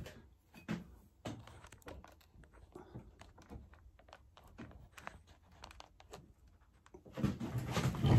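Handling noise of a steel ring mandrel being picked up and settled against the lap: scattered light knocks and clicks, then a louder rustle of clothing and movement about seven seconds in.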